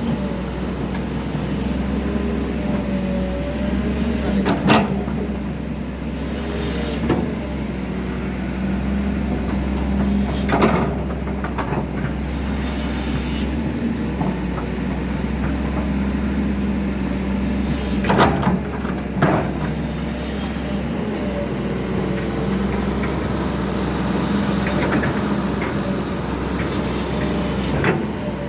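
Excavator's diesel engine running steadily under load, with about six sharp knocks spread through, the loudest around a third and two thirds of the way in.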